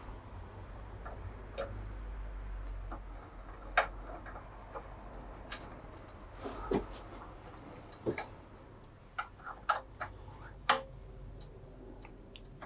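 Irregular small metallic clicks and ticks of an Allen key and bolts being worked into a motorcycle SatNav mounting rail, over a faint low hum.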